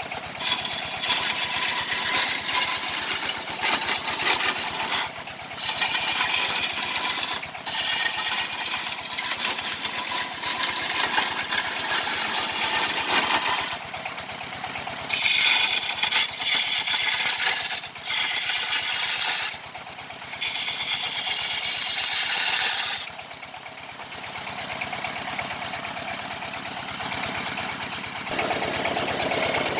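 Wood lathe spinning a block of wood for a kendang drum body while a turning chisel cuts into it. The rasping cut comes and goes as the tool is pressed in and lifted off, over a steady motor hum.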